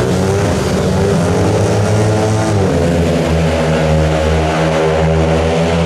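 Several speedway bikes' 500cc single-cylinder engines revving together at the start line, then pulling away as the heat starts, with the engine pitch shifting about two and a half seconds in.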